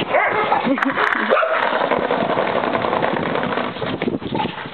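Dog whimpering and yipping in short pitched calls during the first second or so, over a steady rough noise.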